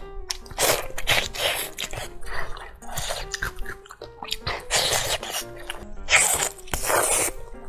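Close-up eating: biting and chewing sticky, sesame-glazed braised meat, in loud noisy bursts, the strongest about two-thirds of a second in and again around five, six and seven seconds. Behind it, background music plays a simple tune of short notes.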